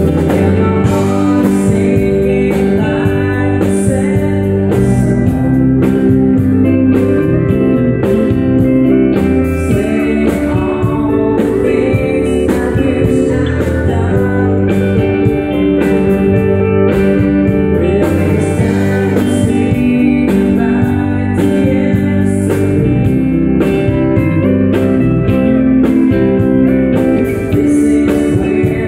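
Live country music: a man singing over electric guitar, with a steady beat.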